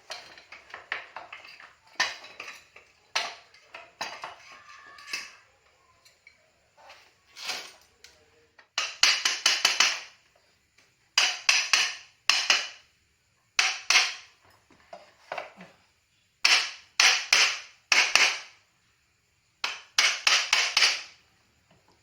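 Metal hand tools and parts clinking and tapping against each other in quick clusters of strokes, with short pauses between them.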